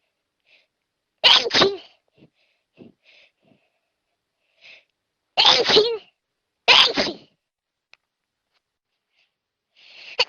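A person sneezing in a fit: three sneezes, the first in two quick bursts, with faint sniffs and breaths between them. A rising intake of breath begins near the end.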